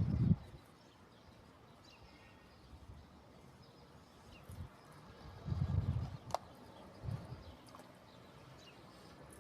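Quiet outdoor background with faint, scattered bird chirps and a few low dull thuds, plus one sharp click about two thirds of the way in.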